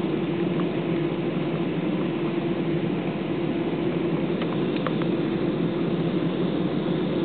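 Cabin noise inside an Airbus A320 taxiing on the ground: the jet engines' steady drone at low taxi power, with a few faint clicks about halfway through.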